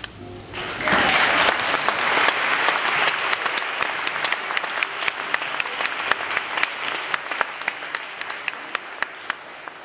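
Audience applauding, starting about a second in: a dense burst of clapping that gradually thins to scattered individual claps and fades away.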